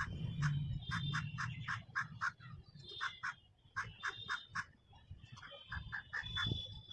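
Birds calling in rapid runs of short, sharp chirps, with a low steady hum underneath that is strongest in the first half.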